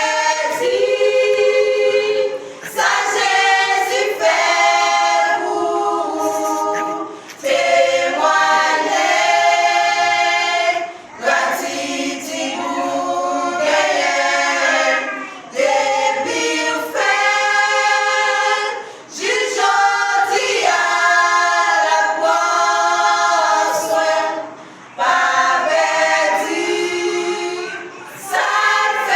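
A choir singing a cappella in phrases a few seconds long, several voices in harmony with no instruments heard.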